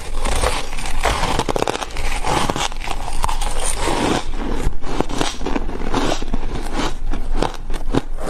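A person chewing ice chunks close to the microphone: a dense, continuous run of crunches and crackles.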